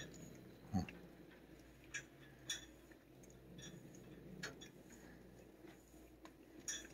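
Faint, irregularly spaced clicks and light taps from a telescoping metal back-scratcher with a plastic hand as it is worked against a cat's head and fur. The loudest tap comes about a second in.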